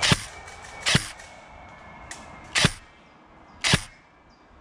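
Airsoft gun firing four single shots at uneven intervals, each a sharp, short crack close by.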